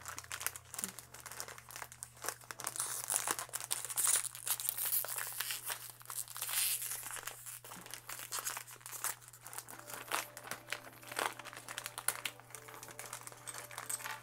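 Foil-lined plastic LEGO Minifigures blind-bag packet crinkling and tearing as it is ripped open and squeezed by hand, a dense run of irregular crackles.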